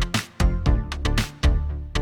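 A mixed track playing through a Toft Audio ATC-2 channel strip: a steady groove of sharp drum hits over a bass line and pitched instruments.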